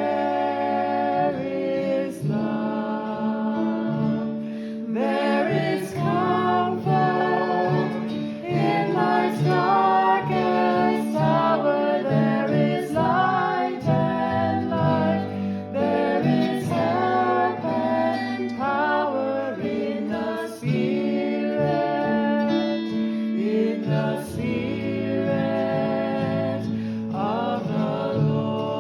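Background music: a song with singing over acoustic guitar.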